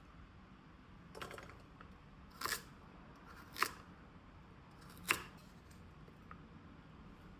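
Kitchen food preparation with carrots: four short, sharp clicks and scrapes of a utensil, spaced about a second or so apart.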